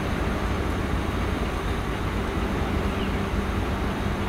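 Steady low rumble and drone of the ferry's diesel engines heard on deck while the ship is underway, with no breaks or changes.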